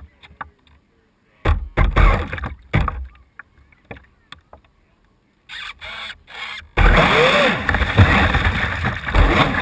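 Radio-controlled brushless speedboat taking off at speed about seven seconds in: a sudden, loud, continuous rush of water spray and hull noise, with the motor's pitch sweeping up and down as it turns. Before that, a few short bursts of noise and scattered knocks come while the boat sits on the water.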